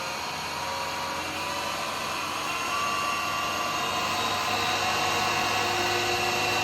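Wood lathe motor running with a pen blank spinning, being turned up in speed to about 3,080 rpm, so its steady whir gets gradually louder.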